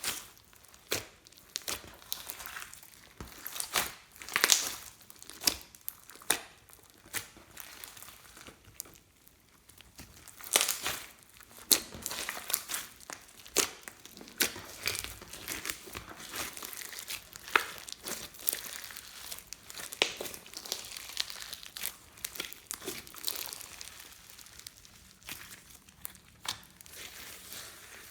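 Slime being squeezed, stretched and pressed by hand, giving irregular sticky crackles and sharp pops, with louder pops about four, ten and twelve seconds in.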